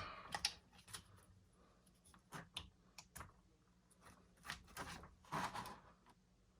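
Scattered light plastic clicks and taps, a few of them louder, from an RC truck and its transmitter being handled and set up on a stand on a workbench.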